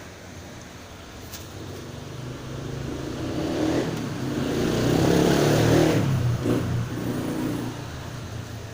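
Second-hand washing-machine motor driving a homemade noodle-dough roller, running with a steady low hum. The sound swells louder about halfway through and eases off again.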